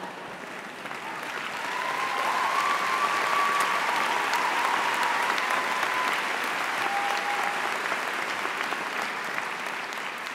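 Large audience applauding. The clapping swells about two seconds in and begins to fade near the end.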